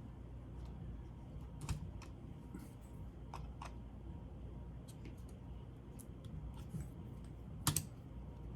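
Scattered light plastic clicks and taps from laptop parts and connectors being handled during reassembly, with the sharpest double click near the end, over a low steady hum.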